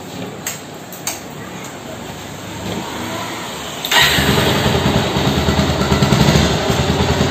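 Bajaj Pulsar 220F single-cylinder engine starting: after a couple of faint clicks it catches suddenly about four seconds in and runs with a steady pulsing beat. It is the first start of the freshly rebuilt engine, which had seized from running without oil, and it starts properly with fairly healthy engine noise.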